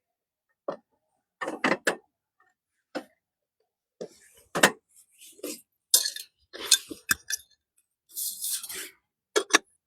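Scattered clinks, clicks and knocks of pots and cooking utensils being handled, with a short hiss about eight seconds in.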